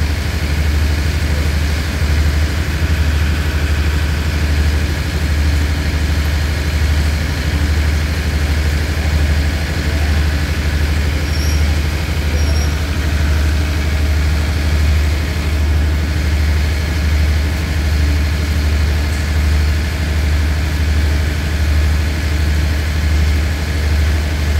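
Diesel engine of a standing passenger train idling: a steady low hum with a slow, even throb.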